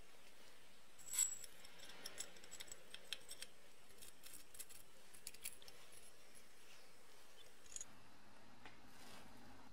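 Small metal clicks and clinks of brass lamp fittings being handled and fitted into a painted carbide bicycle lamp body, with a sharp click about a second in and a scatter of lighter ticks after it.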